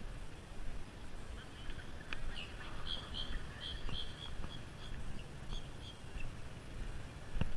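Low, steady rumble of wind on the microphone, with a bird chirping a quick run of short, high notes through the middle.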